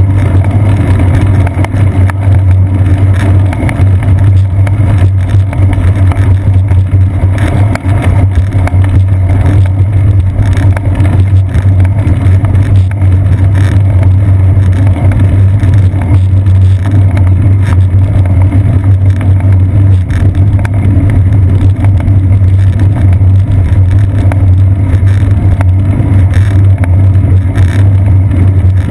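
Loud, steady low rumble of a bicycle rolling along an asphalt path, picked up as vibration through a seat-post-mounted GoPro Hero 2 camera.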